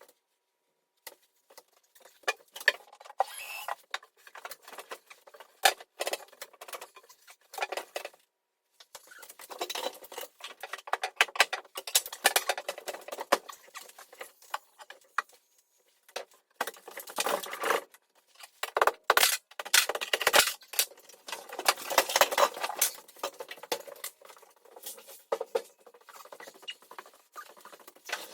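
Irregular scraping, rattling and sharp knocks from kitchen wall cabinets being taken down, coming in bursts with short pauses in between.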